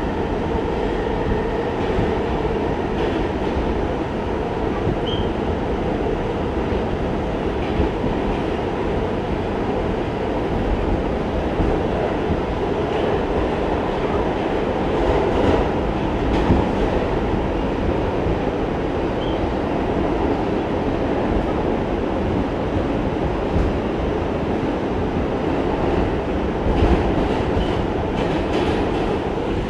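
New York City subway car running through a tunnel, heard from inside the car: a steady, loud rumble of wheels on rail and car body rattle, with occasional faint clicks.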